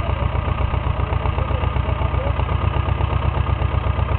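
Small engine of a walk-behind tractor running steadily with a fast, even beat as it works a furrow to lift potatoes.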